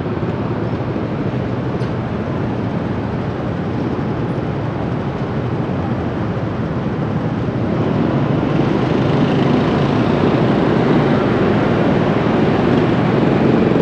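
City street traffic: a steady wash of vehicle engines and tyre noise. It grows louder about eight seconds in.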